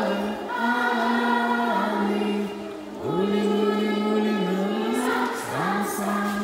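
A group of voices singing a melody together in long held notes, with a brief pause between phrases about three seconds in.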